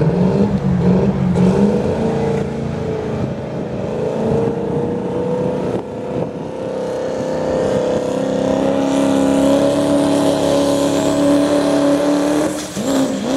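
Pro street class diesel pickup engine at full throttle under load, pulling a weight-transfer sled. It revs up sharply right at the start, then holds a loud, steady drone that climbs slowly in pitch, with a faint high whistle rising over it in the later part. The engine lets off near the end.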